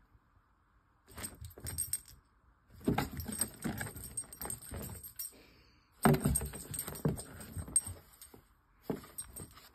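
Metal jingling from the collar of a French bulldog puppy as it runs and pounces on carpet. The jingling comes in four bursts, with dull thumps from its body and paws.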